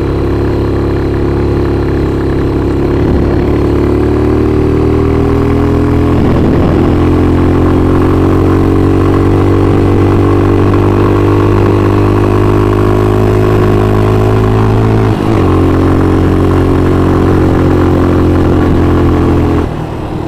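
Motorcycle engine running at steady revs while riding along, with a brief dip in the engine note about fifteen seconds in and the sound falling away near the end.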